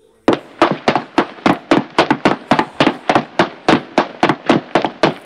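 Quick footsteps, about four a second, starting a moment in and keeping an even pace.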